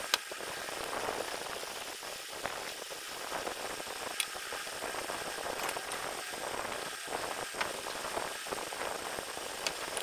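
Eating at a table by hand: small wet sounds of fingers working rice and chicken on china plates over a steady hiss, with a few sharp clinks of crockery, the loudest right at the start.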